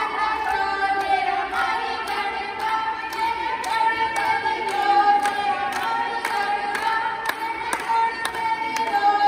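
Women singing Punjabi boliyan for a giddha dance, the lead voice sung into a microphone, with the group clapping on a steady beat.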